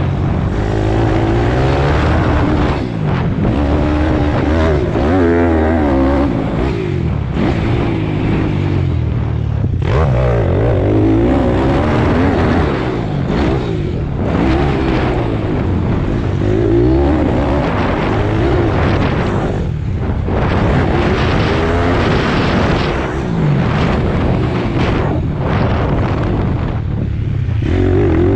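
Pit bike engine heard from the rider's helmet camera, its revs climbing and falling over and over as the rider accelerates down the straights and backs off the throttle, with short dips in revs several times.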